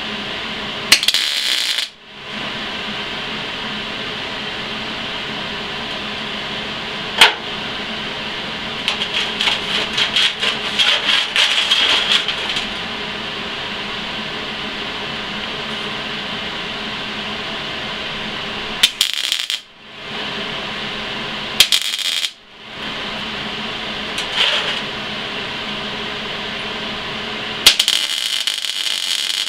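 MIG welder (Eastwood MIG250) arc crackling in short bursts of tack and stitch welds on steel square tube. A burst comes about a second in, a longer crackling run of several seconds in the middle, two brief ones about two-thirds through, and another starting near the end, over a steady hum. There is one sharp click about a quarter of the way in.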